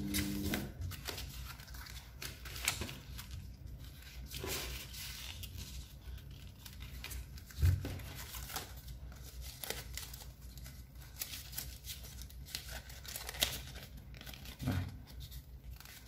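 A sheet of paper being folded and creased by hand into an origami crane: crinkling and rustling, with two soft thumps about halfway through and near the end.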